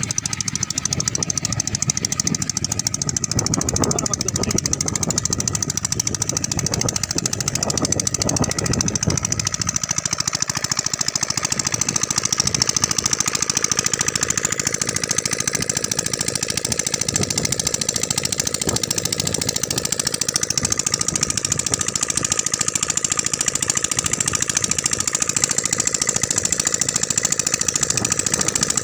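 Single-cylinder 7 hp stationary diesel engine running steadily, with its fast, even diesel knock.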